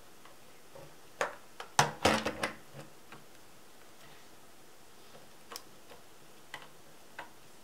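Clicks and knocks of a plastic RC car transmitter being handled and set down on a table, with a burst of clatter about a second or two in, then a few light ticks.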